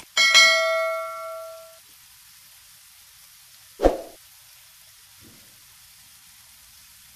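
Subscribe-button animation sound effects: a mouse click, then a bell chime that rings out and fades over about a second and a half. About four seconds in comes a single short pop.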